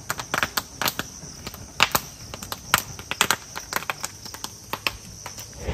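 Wood fire in a small roadside brazier crackling and popping with sharp, irregular cracks as it is fanned to roast corn cobs.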